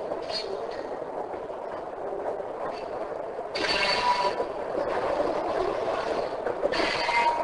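A train rolling by on the rails: a steady rumbling noise that grows louder and brighter about three and a half seconds in, with faint thin high tones over it.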